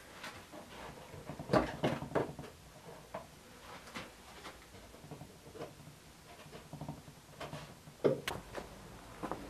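Irregular light knocks and clicks of hands handling things at a workbench, with a cluster of sharper knocks about one and a half to two seconds in and another sharp one about eight seconds in.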